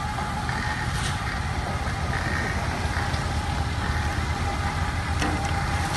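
Tractor engine running steadily at low speed, driving a tractor-mounted grape-spreading machine, with a thin steady whine over the rumble. Two faint clicks come about a second in and near the end.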